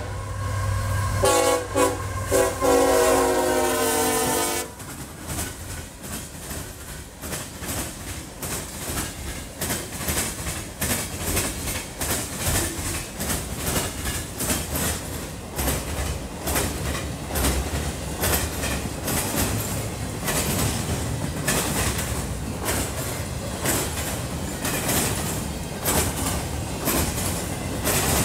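Freight locomotive's multi-chime air horn sounding a short blast and then a longer one, ending about four and a half seconds in. After it, an intermodal freight train passes close by, its wheels clicking rhythmically over the rail joints over a steady rumble.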